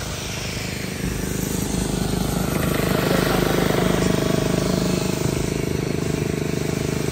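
A concrete pump's diesel engine running steadily with an even, rapid pulse. It grows louder from about a second in.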